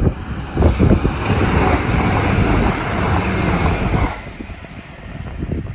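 High-speed electric passenger train passing close beneath, a loud rush of wheels on rail and air from about half a second in that falls away suddenly about four seconds in, with wind buffeting the microphone.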